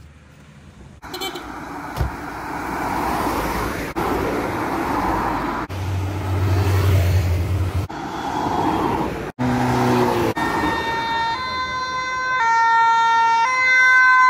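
Road noise of vehicles passing for the first part, then from about ten seconds in an emergency vehicle's two-tone siren, stepping back and forth between a high and a low note and growing louder toward the end.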